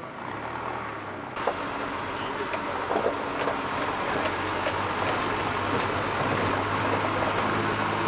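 Vehicle driving on a gravel dirt road: steady engine hum with tyre and gravel noise and scattered small knocks, becoming louder about a second and a half in.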